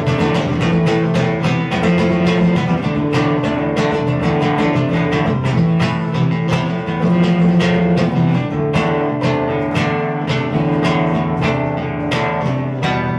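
Solo acoustic guitar played live with fast, rhythmic strumming, an instrumental passage without voice.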